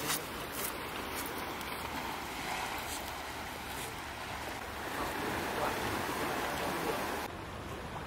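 Seaside ambience: a steady rush of surf and wind. The higher hiss drops away about seven seconds in.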